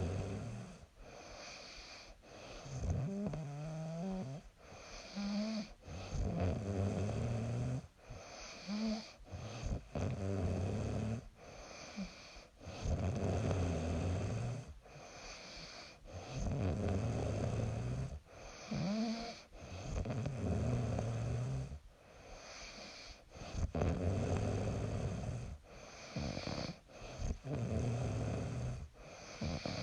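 A young woman snoring in her sleep: a rasping snore on each breath, coming every couple of seconds, with a squeaky, pitched note on some breaths.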